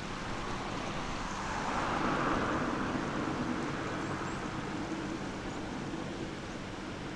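A car passing on the road, its tyre and road noise swelling to a peak about two seconds in and then fading away, over steady outdoor background noise.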